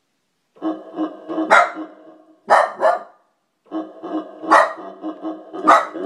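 A dog barking at an electronic keyboard's sound effect: the keyboard plays a quick repeating pitched pattern that starts about half a second in, stops briefly around the middle and starts again, while the dog lets out about five loud barks over it.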